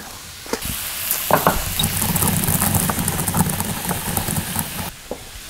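Peppercorns being ground with a pestle in a white marble mortar: a gritty crunching and scraping of stone on stone that cuts off abruptly near the end.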